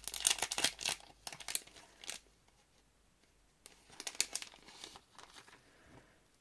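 A thin clear plastic sticker packet crinkling as it is opened and the stickers are slid out, in two spells: a dense crackle over the first two seconds and a shorter one about four seconds in.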